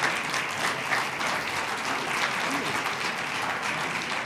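Audience and stage guests applauding, a steady sound of many hands clapping.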